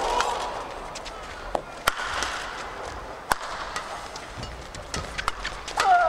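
Badminton rally: sharp cracks of rackets striking the shuttlecock, coming irregularly a second or so apart, with shoes squeaking on the court floor near the end.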